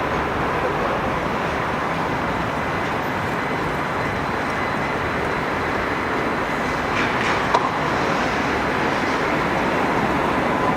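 Tatra T3 tram running along street track: a steady rolling rumble of wheels on rail, with a short squeal and a sharp click about seven seconds in.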